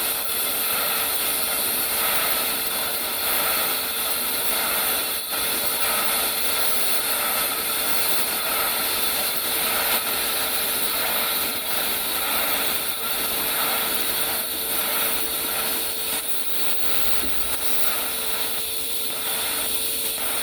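Automatic TIG welding of galvanized steel pipe: a steady arc hiss with a constant hum.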